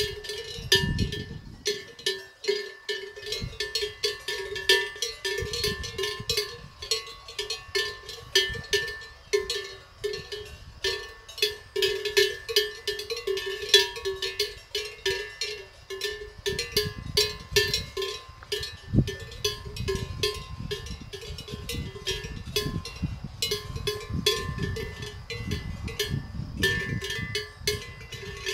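Cowbells on grazing cattle clanking irregularly, several strikes a second, each strike leaving a ringing tone.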